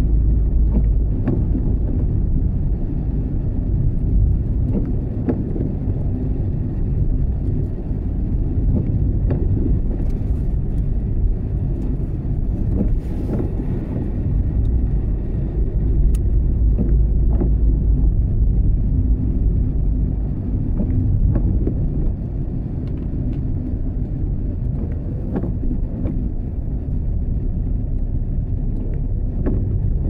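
A steady low rumble with occasional faint ticks scattered through it.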